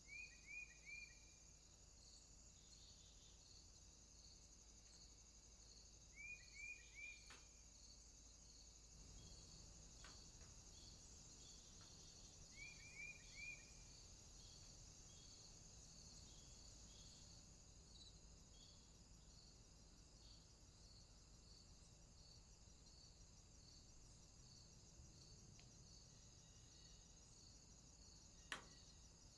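Faint outdoor insect chorus: a steady high buzz with a cricket chirping in a regular pulse. A bird calls three times, each a quick run of three short falling notes, about six seconds apart, and there is a single sharp click near the end.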